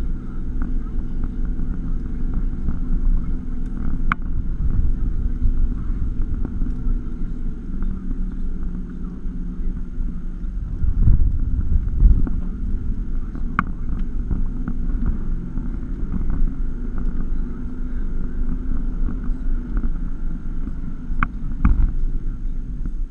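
Cabin sound of a 2016 Toyota Tacoma driving slowly over a rough dirt trail: a steady low engine and drivetrain hum, with a few sharp clicks and rattles and two low thumps about halfway through.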